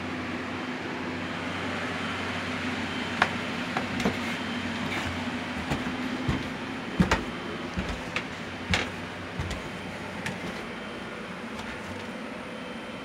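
Footsteps knocking and thudding on wooden stairs and floor, an irregular string of knocks for several seconds in the middle, over a steady mechanical hum.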